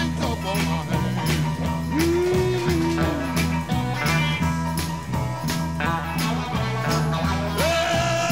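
Electric blues band recording with guitar, bass and drums. A long held note bends about two seconds in and again near the end.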